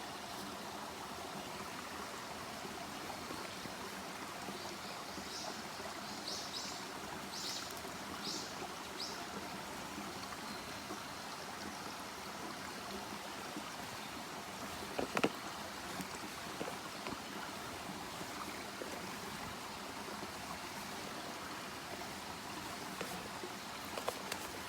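Steady rush of a flowing stream. A quick run of about five short high-pitched chirps sounds a few seconds in, and a single sharp click comes near the middle.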